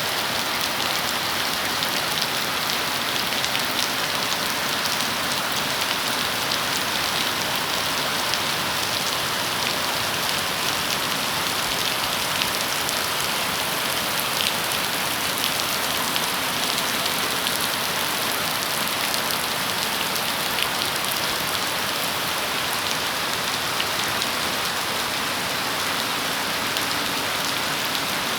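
Steady rain falling, an even hiss with scattered faint drop ticks, unchanging throughout.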